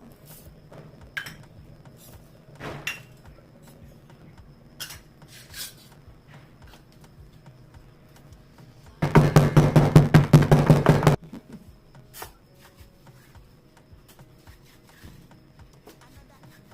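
Kitchen work sounds: scattered knocks and clinks of utensils, then about nine seconds in a loud two-second burst of rapid rattling strokes as herbs or spices are crushed, followed by a few more light knocks.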